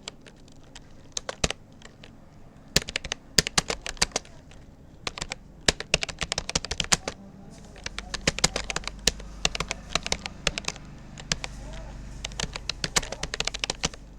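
Typing on a Rapoo computer keyboard: quick clicks of keystrokes in uneven bursts, with short pauses between words. A low rumble comes in underneath about eight seconds in.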